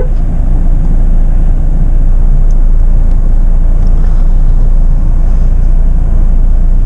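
Jeep Meridian SUV driving on an off-road trail, heard from inside the cabin: a steady, loud low rumble of engine and tyres.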